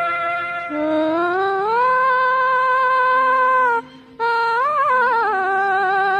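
Background music: a single voice singing long held notes that glide upward in pitch, with a short break about four seconds in followed by a wavering note.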